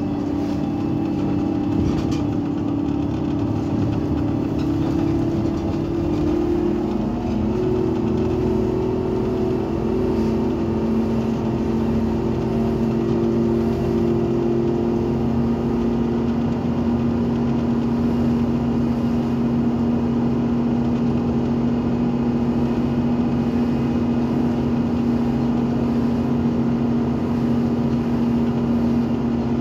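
Irisbus Citelis 18 articulated bus's Iveco Cursor 8 natural-gas (CNG) engine running steadily, a low droning hum that shifts pitch about six or seven seconds in.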